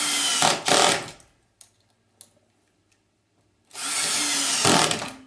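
Power drill driving screws into a roller-blind bracket overhead, in two runs of about a second and a half each: one at the start and one near the end, with a few faint ticks between them.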